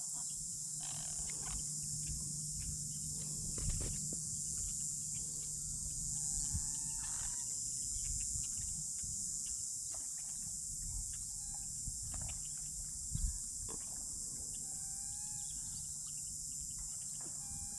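A steady, high-pitched drone of insects, with a few short bird calls now and then.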